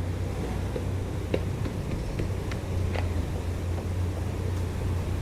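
Hydraulic excavator's diesel engine running steadily with a low hum, with a handful of short sharp knocks between one and three seconds in.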